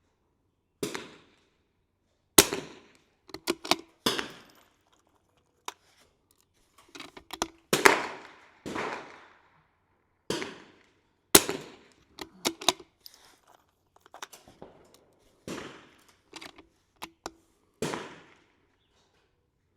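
.22 LR rimfire target rifles firing single shots at an irregular pace, about fifteen cracks, some close and loud and others fainter. The shots come from several rifles along the firing line.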